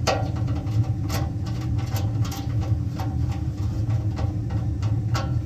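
Scattered sharp clicks and taps of parts being handled during work on a furnace blower motor's wiring, over a steady low rumble.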